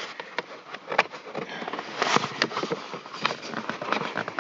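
Plastic dashboard trim being handled and worked into place by hand: irregular clicks, taps and rustles.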